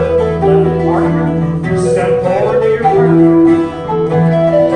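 Bouzouki, acoustic guitar and recorder playing a traditional dance tune, the plucked strings strumming under the held melody notes.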